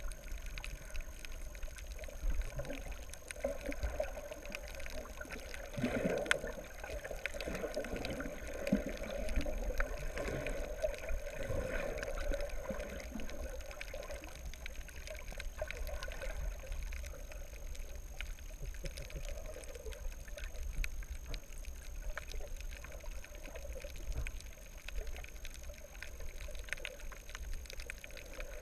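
Muffled underwater water noise picked up by a submerged camera: a low rumble and washing water, busier for a few seconds near the middle, with a faint steady high whine throughout.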